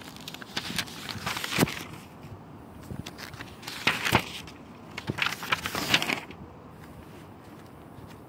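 Spiral-notebook paper pages rustling and crinkling as they are handled and turned, in three short bursts: about a second in, around four seconds in, and again between five and six seconds.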